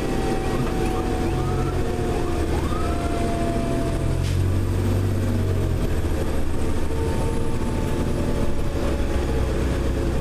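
Fire engine's diesel engine droning, heard from inside the cab while under way, swelling in the middle as it pulls harder. Over it a Federal Q mechanical siren winds slowly down in pitch, faint.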